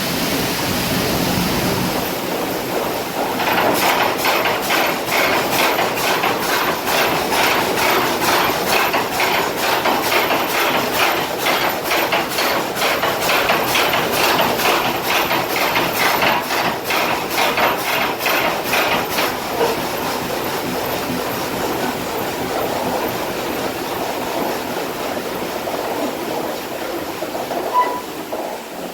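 Water-powered up-and-down sash sawmill running: the reciprocating saw blade, pitman arm and ratchet feed give a steady clacking rhythm of a few strokes a second over the rushing water driving the flutter wheel. The clacking starts a few seconds in and stops about twenty seconds in, leaving the rush of water.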